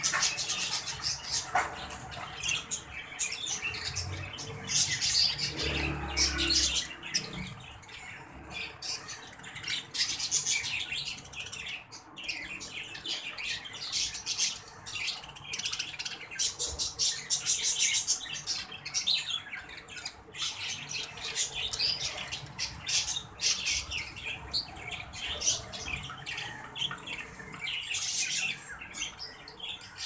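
Several exhibition budgerigars chattering and warbling continuously, a dense run of quick chirps and short squawks.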